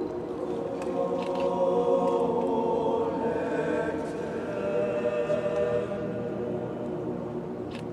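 Mixed choir of young voices singing held chords, the notes changing every second or so.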